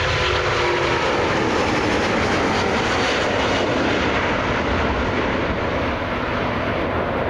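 Airbus A350's twin Rolls-Royce Trent XWB turbofans at takeoff thrust as it climbs away: a loud, steady jet roar that eases slightly near the end.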